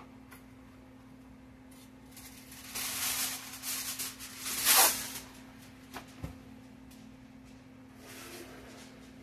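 Aluminum foil pulled off its roll in the box and torn free, crinkling for a few seconds and loudest about halfway through, with a short knock about six seconds in and a fainter crinkle of the loose sheet near the end.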